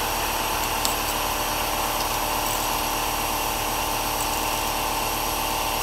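Steady mechanical whir and hum from a running machine, unchanging in pitch and level, with one faint click a little under a second in.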